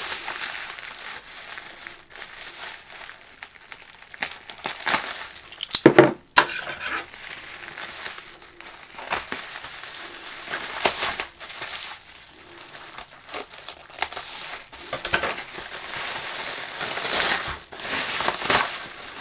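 Plastic bubble wrap crinkling and rustling as a bubble-wrapped parcel is handled and opened, its packing tape pulled and cut with scissors. The crinkling comes in uneven bursts, loudest about six seconds in.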